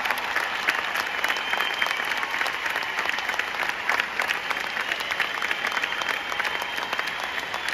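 Large concert audience applauding, dense clapping from many hands at a steady level.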